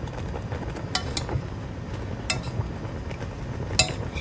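A thin metal utensil stirring chicken wings in bubbling sauce in an enamel pot, clinking against the pot a few times, the loudest clink near the end, over a steady low background.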